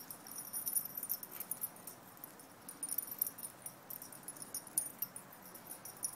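Light, irregular metallic jingling from a small dog's collar tags as it runs and pounces across the grass.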